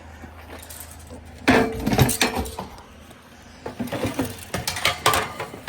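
Scrap metal and household junk clattering and clinking as it is thrown onto a load, in two bursts: one about a second and a half in, another in the second half.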